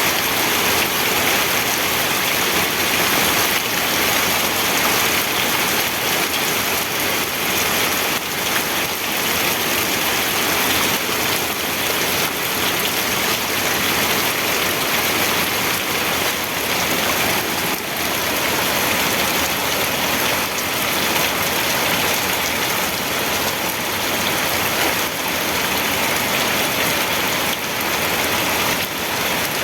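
Steady, even rainfall hissing, with no breaks.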